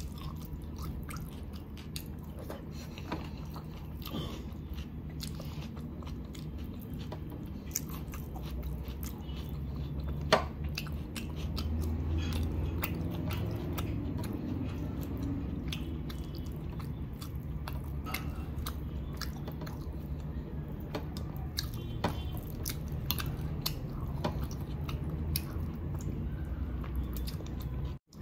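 Close-miked chewing and biting of chicken biryani eaten by hand, with many small wet mouth clicks and one sharper click about ten seconds in.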